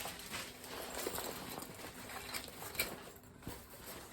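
Washing machine running, with irregular light knocks and clicks about once a second over a steady hiss.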